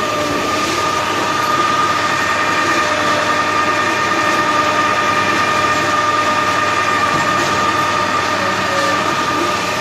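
Electric-driven 4 m³ TMR feed mixer running while mixing feed: a steady machine whine with several held tones over a mechanical rumble.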